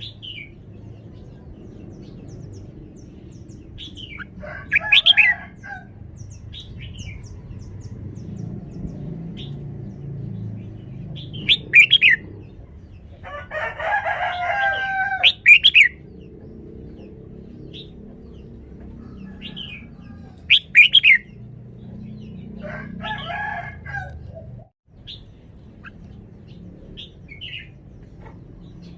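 Red-whiskered bulbul singing bursts of short, clear whistled phrases separated by pauses of several seconds; the longest, fullest phrase comes about halfway through. A low steady background noise runs underneath.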